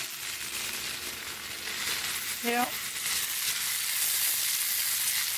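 Sausages, peppers and onions sizzling in a cast iron skillet over a wood fire, a crackly hiss that grows louder about halfway through. A brief voice sound comes just before it swells.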